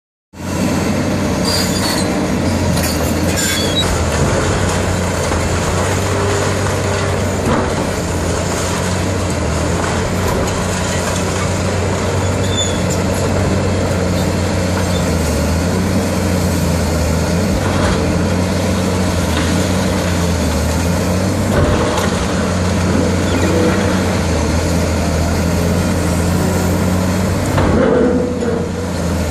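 Heavy diesel demolition machine running steadily under load, with a few sharp knocks and crunches of breaking debris.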